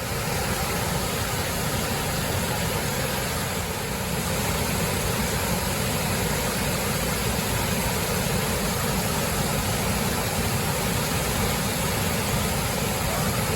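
Steady, unbroken roar of a waterfall heard at close range, loud and even.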